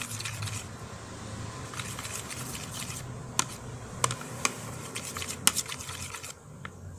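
A spoon stirring glue and detergent activator as it turns to slime in a container: wet squishing and scraping, with a few sharp clicks of the spoon against the container.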